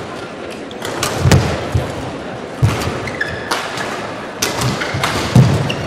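Badminton singles rally: rackets striking the shuttlecock and players' feet landing hard on the court, a knock or thud about once a second, over a steady hum of arena crowd noise.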